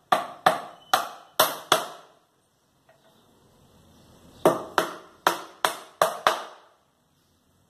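Claw hammer driving nails into pallet wood, a side board being nailed on: five sharp blows in quick succession, a pause of about two seconds, then six more.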